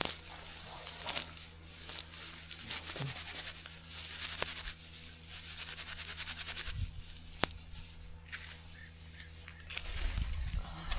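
Dry grass tinder rustling and crinkling as it is twisted into a bundle by hand and pushed into a fire lay of birch sticks, with a few sharp clicks. Dull knocks near the end as the sticks are shifted.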